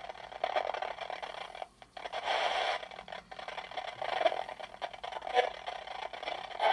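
Polterpod spirit box sweeping through radio channels: choppy static broken into clipped radio fragments, cutting out briefly a couple of times.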